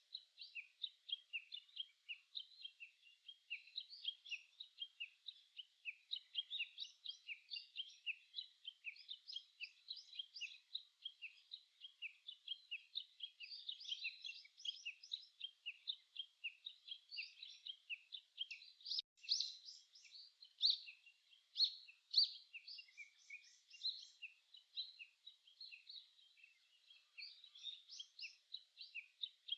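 Small birds chirping and singing in a dense, unbroken chorus of short, high notes, with a few louder calls about two-thirds of the way through.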